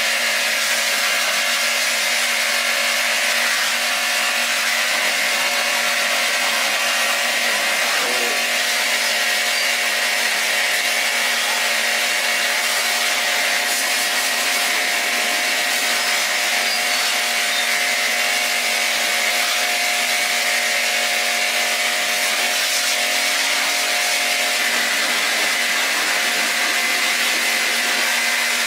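A power tool running continuously with a steady rasping, hissing noise, like grinding or sanding, unchanged in level throughout.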